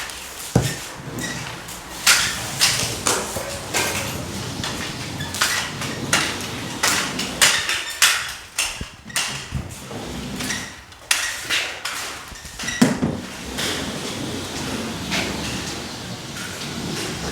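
Irregular knocks and clatter from drywall finishing work: tools and equipment being handled and set down, with a dozen or more sharp hits at uneven intervals.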